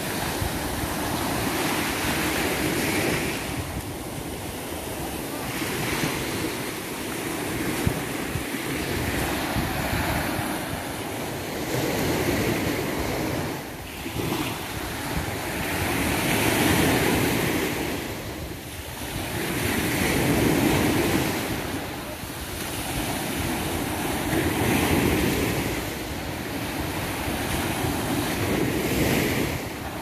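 Small sea waves breaking and washing up a sandy beach, the surf swelling and fading every few seconds, with wind buffeting the microphone.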